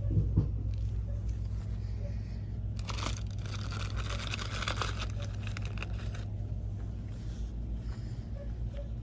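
Crinkling and rustling of handled merchandise packaging for about three seconds, over a steady low hum.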